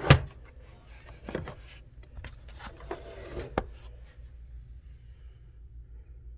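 Folded-up document camera being handled and set into its carrying case: a loud knock at the start, then a few lighter knocks and clicks over the next few seconds, after which it goes quiet apart from a faint low hum.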